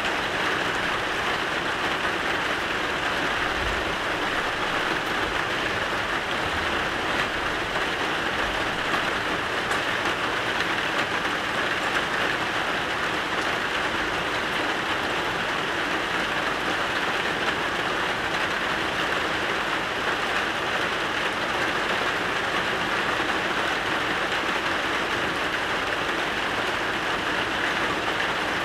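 Steady rain falling: an even, continuous hiss with no breaks.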